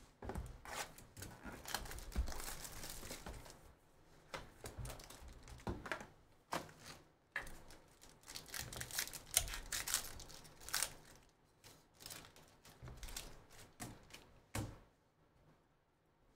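Crinkling and tearing of a foil-wrapped trading-card pack as it is unwrapped, with scattered rustles and light clicks of card boxes and cards being handled; it goes quieter near the end.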